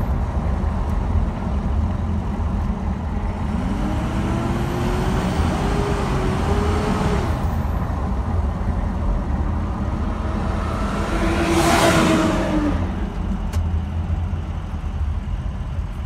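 Ford F-350's 6.0 Power Stroke V8 diesel heard from inside the cab while driving. Over its low running sound is a whine whose pitch slowly rises and falls with engine speed. About three-quarters of the way through comes a louder rushing swell.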